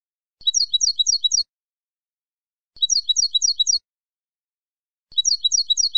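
Wild European goldfinch (jilguero campero) singing: a high, quick phrase of four repeated down-sliding notes, given three times about two and a half seconds apart with silence between. The phrases are identical, a looped song recording of the kind played to teach captive goldfinches their song.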